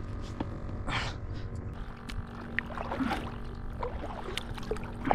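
Small knocks and clicks of gear being handled aboard a kayak while the angler reaches for a live bait shrimp, with a brief rustle about a second in over a low steady rumble.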